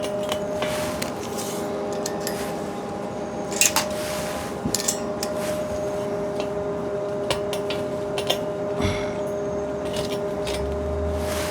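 Scattered light metallic clinks and clicks as steel square tubing and hand tools are handled, over a steady two-note hum.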